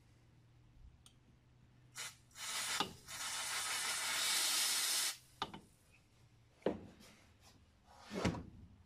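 Can of compressed air (air duster), held upside down, spraying onto the top of a two-stroke crankshaft to freeze it: one loud hiss of about two and a half seconds. A few short knocks and clatters of parts being handled come before and after it.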